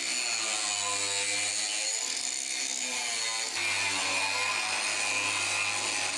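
Angle grinder running with its disc against an aluminium casting, grinding a weld groove into a cracked spot to prepare it for repair welding.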